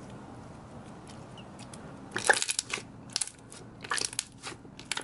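Jelly slime made with instant snow powder, squeezed and squished by hands, giving off sharp crackling clicks. The clicks come in clusters, starting about two seconds in.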